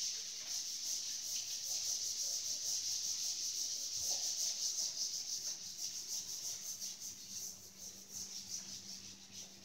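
A cloth wiping chalk off a blackboard in rapid back-and-forth strokes, a steady scrubbing hiss that grows fainter toward the end.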